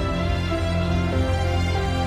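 Instrumental background music with long held notes and a steady level.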